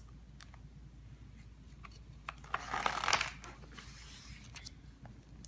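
A picture book's page being turned by hand: a brief papery rustle and slide about three seconds in, with a few light taps of handling the book before it.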